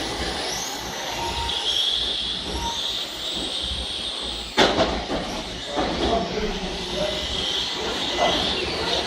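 Radio-controlled model trucks racing, their motors whining high and gliding up and down in pitch as they speed up and slow, with a sharp knock about four and a half seconds in.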